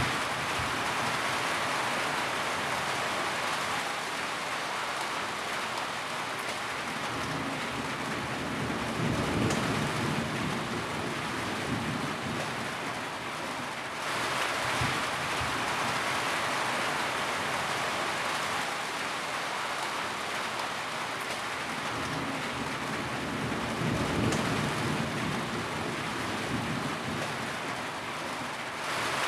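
Steady heavy rain falling, with a low rumble of distant thunder swelling up twice, about a third of the way in and again near the end.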